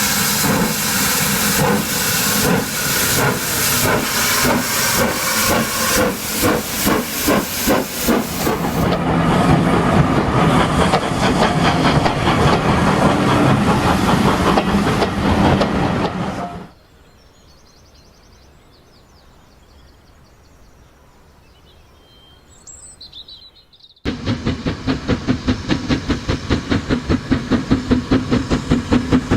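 Sound-fitted OO gauge model steam locomotive chuffing with steam hiss, the beats quickening over the first several seconds before blending into a steady rush of hiss. The sound cuts off abruptly for several seconds, then returns with even chuffs of about three a second.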